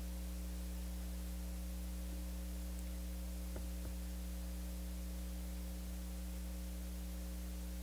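Steady electrical mains hum, with two faint clicks a little past the middle.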